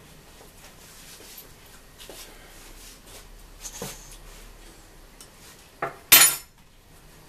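A metal spoon and mesh sieve clink lightly over a stainless steel mixing bowl. About six seconds in there is a brief, loud metallic clatter, as of the sieve knocking against the bowl.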